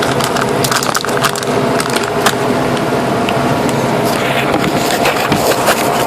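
Continuous crackling with many sharp clicks from parts and packaging being handled close to the microphone.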